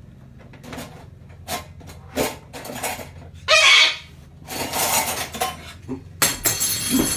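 Hard objects clattering and knocking: a string of sharp clicks, with louder rattling stretches about halfway through and near the end.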